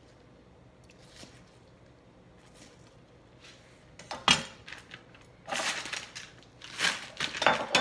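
A few faint knife taps on a plastic cutting board as green onions are sliced. About four seconds in comes a sharp clack as the kitchen knife is set down, then a few seconds of clattering and rustling as kitchen things are handled.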